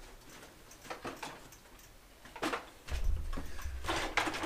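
A bicycle being wheeled and handled: light clicks and knocks, a sharper knock, then from about three seconds in a low rumble with clattering as the bike is moved.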